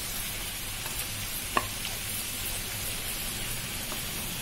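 Marinated chicken pieces sizzling steadily in hot oil and onion-tomato masala in a kadai while being stirred with a wooden spatula, with a single sharp knock about a second and a half in.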